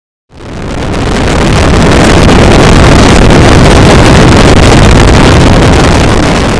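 Loud wind noise buffeting the microphone while riding a Honda NX650 Dominator behind a homemade PVC windshield, the turbulence the windshield is being tested for. It cuts in suddenly just after the start and swells over the first couple of seconds, then stays steady.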